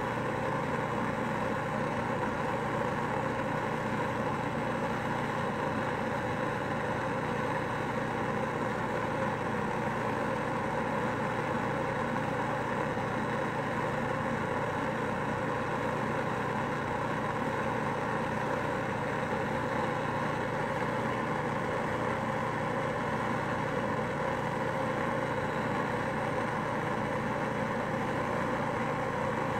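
Handheld gas torch burning steadily: the constant hissing roar of its open blue flame as glass rods are melted in it.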